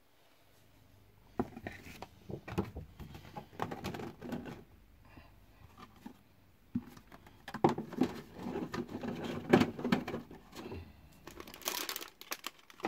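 Plastic miniature sprues, printed card and cardboard being handled and packed into a cardboard box: irregular rustling, crinkling and light clacks, coming in clusters with a short lull about halfway.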